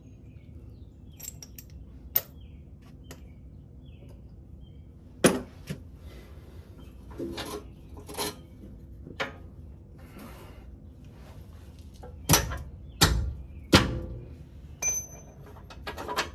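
Hand tools and loose bolts clinking and knocking on metal as the bolts and nuts of a Jeep Wrangler's transmission crossmember are worked loose: scattered sharp knocks, then a cluster of louder clanks near the end, one ringing briefly.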